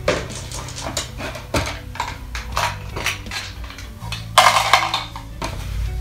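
Dice clicking and clattering as they are shaken and rolled, with a denser, louder rattle lasting about a second near the end.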